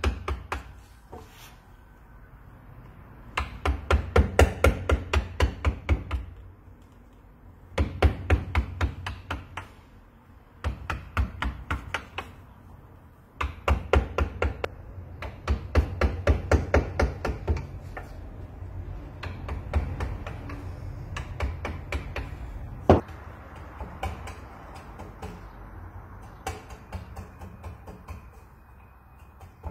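A small hammer striking a woodcarving gouge as it cuts into a wooden sculpture, in quick runs of about four or five knocks a second broken by short pauses. Toward the end the knocks become sparser and softer, after one sharp single strike.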